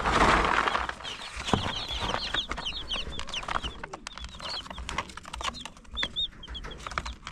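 A crowd of broiler chicks peeping, many short high chirps overlapping throughout. A loud rustle of handling noise in the first second, with scattered clicks after it.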